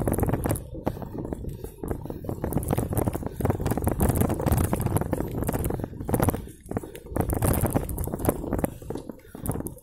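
Mountain bike jolting over a bumpy dirt trail: rapid, irregular rattling and knocking from the bike and its handlebar mount over a dense rushing noise, briefly easing about six and a half seconds in.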